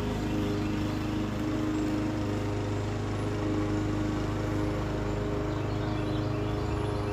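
Lawn mower engine running steadily at constant speed.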